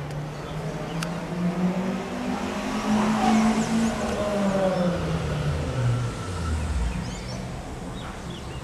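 A passing vehicle's engine hum that swells to its loudest about three seconds in, then drops in pitch and fades as it goes by.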